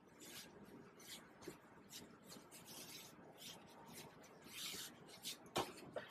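Chinese painting brush dragged across paper in short, dry strokes: faint, repeated scratchy rubbing, with a couple of sharper clicks near the end.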